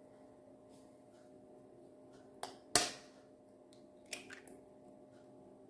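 Eggshell being cracked with a kitchen knife over a steel mixer jar: a few short sharp taps, the loudest a little under three seconds in, then a couple of lighter taps about a second later.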